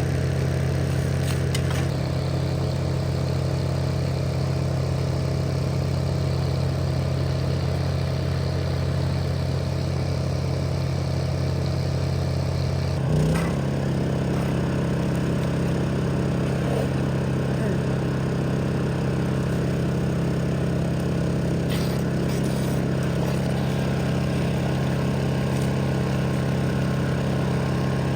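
An engine running steadily with a deep drone; about thirteen seconds in there is a brief knock and its pitch shifts slightly, then it runs on.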